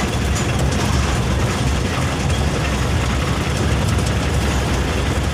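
Heavy engine idling steadily: an even, unbroken low rumble.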